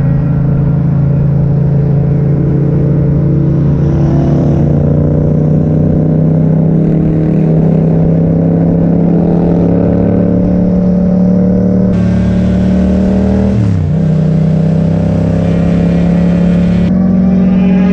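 Yamaha MT-07's parallel-twin engine running through an Akrapovic exhaust, holding a steady pitch while riding. About fourteen seconds in, the engine note dips sharply and comes straight back up.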